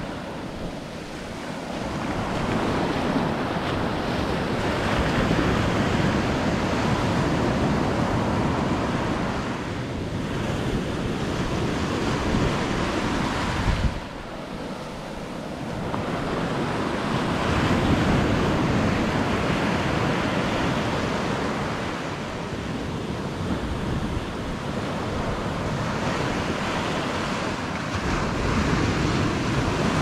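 Ocean surf breaking and washing ashore, swelling and easing as the waves come in, with wind buffeting the microphone. The sound drops away suddenly about fourteen seconds in and builds up again.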